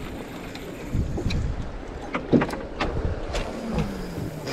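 Choppy sea water slapping against the hull of a small fishing boat, with wind on the microphone and scattered knocks and clicks.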